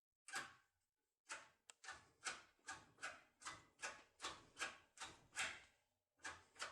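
Foil-type forced-opening tool rocked up and down under tension in an ISEO R500 pin cylinder: a rhythmic series of short metallic scraping clicks, about three a second, as the tool works against the pins to break them.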